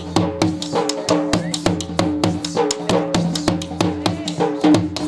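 Dhol drumming in a fast, even beat of several strikes a second, over a steady held tone, for Punjabi dance.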